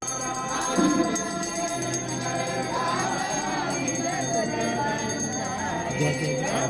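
Music with singing and jingling bells, starting right after a brief silent cut.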